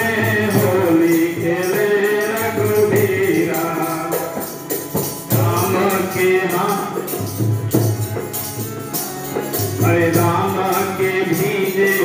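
Live Holi folk singing through a microphone, a voice accompanied by harmonium and dholak with a steady rhythmic percussion beat.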